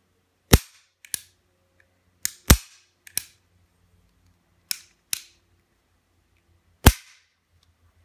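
Beretta 92FS 9mm pistol being handled, its metal parts giving about ten sharp clacks and clicks, some in quick pairs, the loudest about half a second, two and a half seconds and seven seconds in; typical of the slide and hammer being worked once the pistol is back together.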